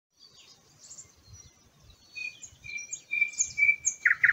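Several wild songbirds singing and chirping, with short high notes and a held whistle. About four seconds in, one bird starts a loud, rapid trill of evenly repeated notes.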